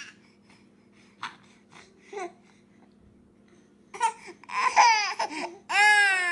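A baby girl makes a few short babbling sounds, then about four seconds in breaks into loud crying in long, rising-and-falling wails, upset at losing the pacifier to her twin.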